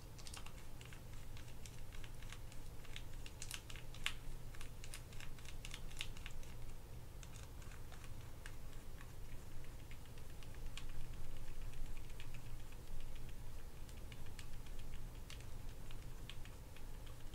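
Irregular light metallic clicks and ticks from a small screwdriver turning long screws into the frame of a Daiwa Sealine 400H conventional reel. The clicks are thickest in the first few seconds and again near the end, over a low steady hum.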